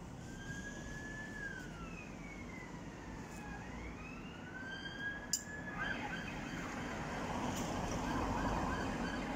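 An emergency vehicle siren wailing in slow rising and falling sweeps, switching after about six seconds to a faster repeating warble, over a steady low urban rumble. A single sharp click sounds a little past five seconds in.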